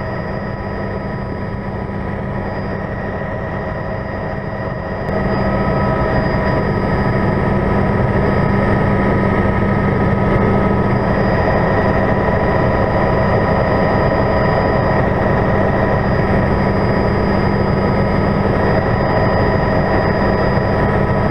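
Helicopter in flight: a steady engine whine over a constant drone, growing louder about five seconds in.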